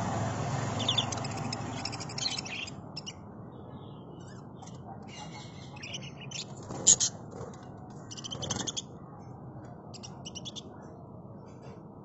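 Budgerigars chirping and chattering in scattered bursts of quick, high warbling notes, the sharpest chirp about seven seconds in, over a low steady background rumble.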